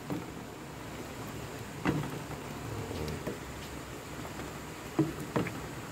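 A pot of fish sinigang simmering on a stove burner: a steady low rumble and hiss, with a few light knocks about two seconds in and again near five seconds.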